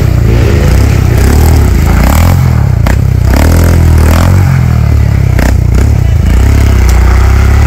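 Off-road motorcycle engine revving on a dirt track, its pitch dipping and climbing again around the middle, with a couple of sharp knocks.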